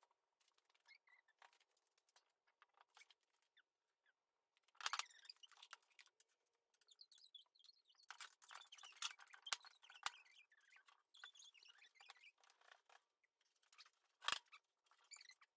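Near silence with faint scattered clicks and taps, two of them sharper, about five seconds in and near the end.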